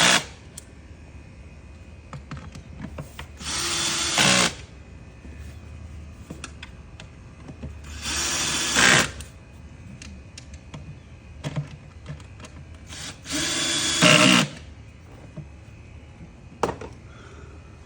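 Cordless drill driving screws into the plastic air filter box cover, set to a low clutch setting to avoid cracking the plastic. Three short runs of about a second each, each ending in a brief louder burst as the screw seats.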